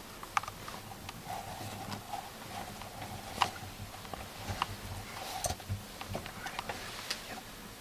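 Scattered light clicks and crunches, the sharpest about a third of the way in, over a faint steady hum that fades out past the middle.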